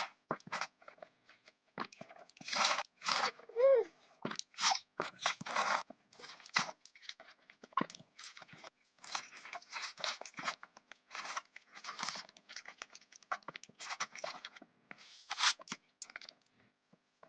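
Close-up eating sounds: crunchy sweets bitten and chewed in irregular bursts of crackling crunches. One short squeaky tone, falling in pitch, comes at about three and a half seconds in.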